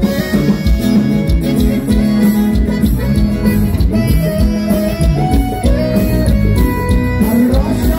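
Live band music with guitar over a bass line and a steady beat.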